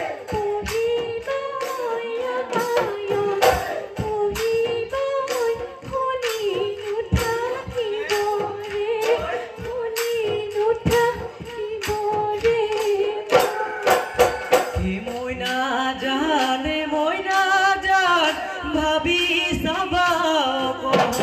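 Bihu music: a sung melody over quick, regular drum beats, with a second, lower melodic line joining about fifteen seconds in.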